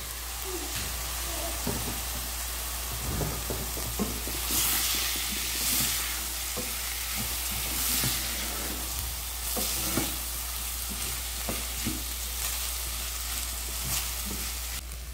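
Washed raw rice sizzling as it fries in lard and seasoning in a stainless steel pot, stirred with a wooden spoon that scrapes and clicks against the pot. The sizzle swells twice as the spoon turns the rice over.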